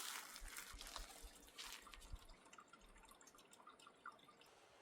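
Near silence: faint rustling with a few soft clicks.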